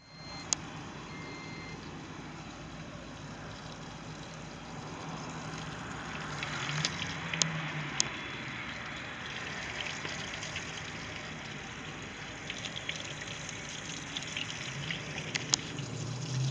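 Monterey boat's engine running with water gushing and splashing steadily, a few sharp clicks over the top. The engine is running again after a no-start fault.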